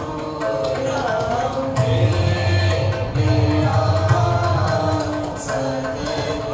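Bowed taus and dilrubas playing a held, gliding melody together, with tabla accompaniment; the tabla's deep bass strokes are heaviest from about two to five seconds in.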